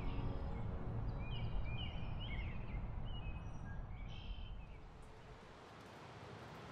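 Outdoor ambience: a steady low rumble with a few short gliding bird chirps, in two clusters about a second and a half in and again about four seconds in. The last of a music chord dies away at the start, and the rumble fades down near the end.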